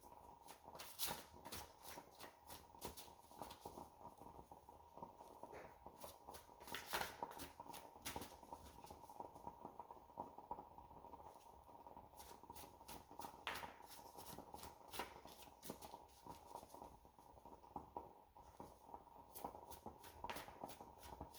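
Faint shuffling and handling of a tarot deck: soft, irregular card flicks and rustles, in quick clusters.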